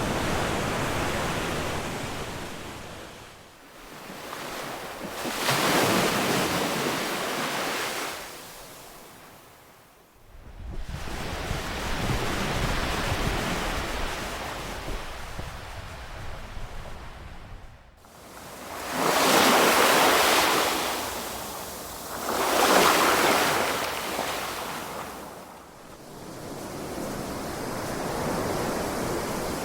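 Ocean surf: waves breaking in rushing surges several seconds apart, each swelling and fading away, the two loudest coming close together past the middle.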